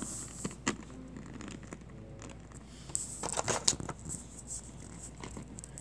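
Plastic organ pieces of a toy human-torso anatomy model being handled and fitted into the torso: scattered small clicks and rustling, with a quick run of louder clicks about three seconds in.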